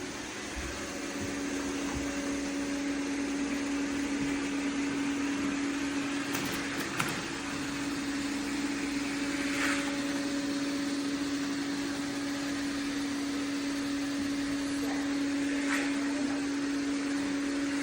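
iRobot Roomba Plus 405 vacuum-mop robot running with a steady motor hum, one held pitch over an even whir, with a couple of faint brief chirps.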